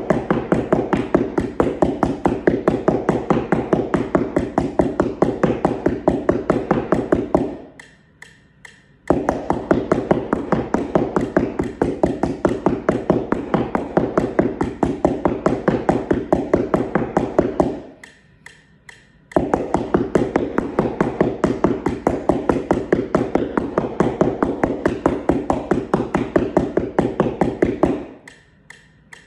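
Mallets tapping a homemade cardboard practice keyboard in rapid, even strokes, played in runs that pause briefly about 8 seconds in and again about 18 seconds in, and stop near the end.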